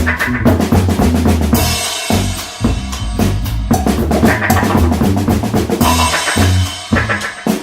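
A funk-rock band playing an instrumental jam: a busy drum kit with bass drum and snare hits, over a low bass line and other instruments.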